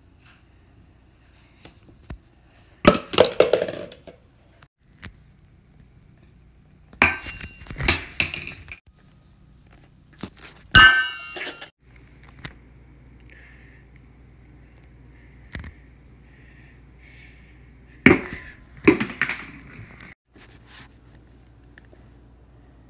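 Four separate bursts of knocking and clattering, the third with a brief ringing clink.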